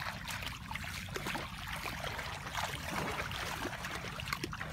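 Water splashing and sloshing as a person wades through shallow, muddy floodwater, in many short irregular splashes.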